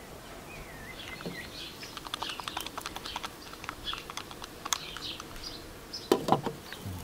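Small birds chirping, then a run of quick light clicks. About six seconds in comes a louder knock as a glass pot lid with a metal rim is set down on a metal cooking pot.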